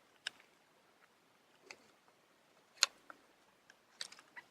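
A few faint, sharp clicks and taps of small plastic smartphone parts being handled and pried during reassembly, with the loudest click about three seconds in and a quick cluster near the end.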